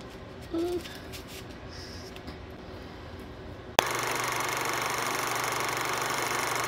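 Faint room tone with a few light clicks, then a sharp click about four seconds in, followed by a steady hiss with a low hum: an old-film noise effect under the end card.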